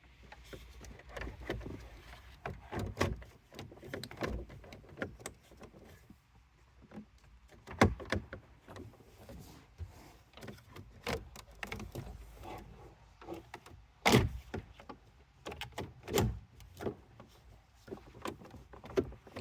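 Car interior trim parts being handled and fitted into the centre console: an irregular run of plastic clicks, taps and knocks, with two sharper knocks about eight and fourteen seconds in.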